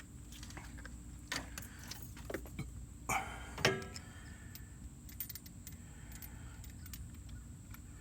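Light metallic clicks and clinks of a new spark plug being handled and fitted into a spark plug socket, the loudest knocks about three to four seconds in.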